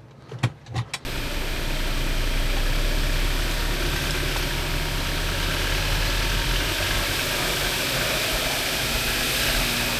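A few light clicks, then from about a second in the Jeep Wrangler's engine running steadily under a constant hiss.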